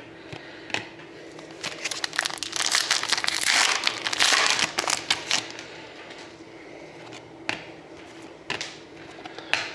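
Crinkling and rustling of trading-card packaging as hockey cards are handled, densest for a few seconds early on, then a few scattered sharp clicks.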